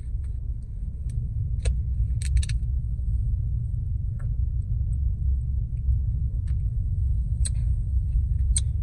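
Steady low rumble inside a parked car's cabin, with a few short clicks and knocks scattered through it while Pepsi is drunk.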